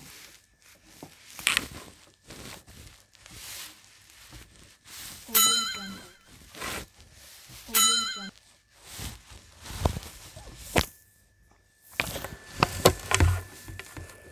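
Plastic drinking straw knocking and scraping against a Frooti juice box carton and a plate as it is nudged by mouth toward the straw hole, with scattered clicks and knocks. Two brief squeaky tones come about two seconds apart, and a quick run of sharper knocks comes near the end.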